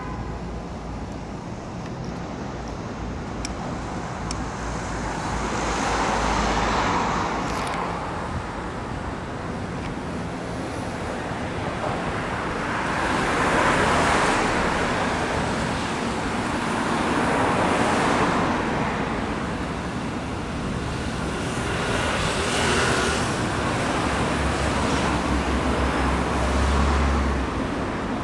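Road traffic passing: about five vehicles in turn swell up and fade away over a steady low rumble.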